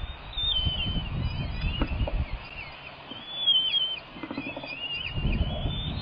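Bald eagles calling: a series of thin, high-pitched chirps and whistles, several dropping in pitch at the end, over the low rumble of wind on the microphone.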